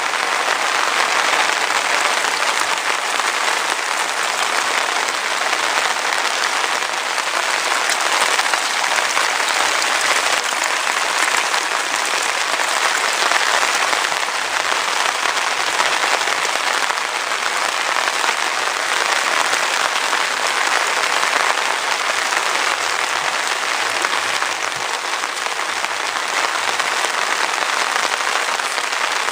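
Heavy rain falling steadily, a dense even hiss that holds at the same level throughout.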